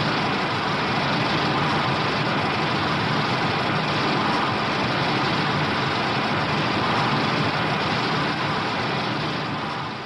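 A fan-made Shin Godzilla sound effect: a loud, steady wall of rushing noise with no clear pitch, holding level and starting to fade near the end.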